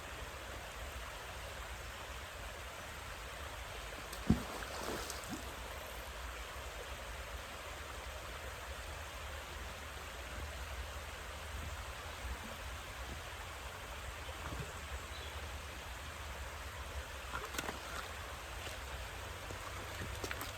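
Steady rushing of flowing water, with one sharp knock about four seconds in and a few fainter clicks near the end.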